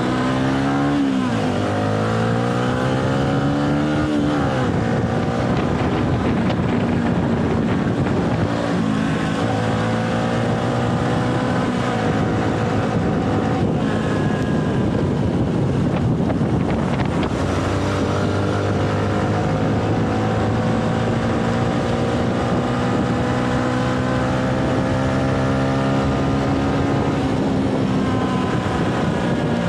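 Motorcycle engine pulling through the gears under way, its pitch climbing steadily and dropping at each upshift (about a second in, around four seconds, near seventeen seconds and near the end), with wind rushing over the microphone.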